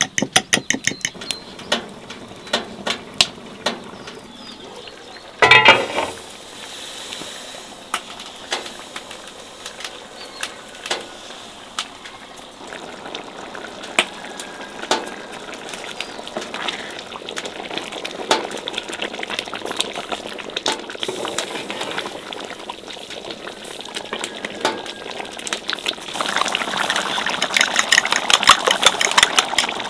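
Thick red sauce boiling in a cast-iron pan, a steady bubbling with small pops that grows louder and more vigorous near the end. A few clinks at the start and one loud clatter about five seconds in.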